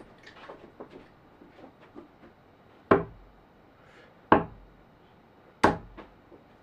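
Three darts striking a dartboard one after another, each a sharp thud about a second and a half apart.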